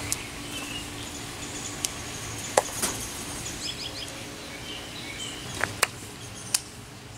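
Outdoor backyard ambience with birds chirping now and then. A handful of sharp clicks stand out above it, the loudest about two and a half seconds in.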